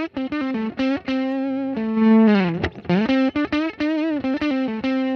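Electric guitar playing a single-note lead line through a Logic Pro Pedalboard overdrive pedal, the only effect switched on, giving a lightly distorted tone. It plays a run of separate picked notes, a held note with vibrato, and a note bent downward about two seconds in.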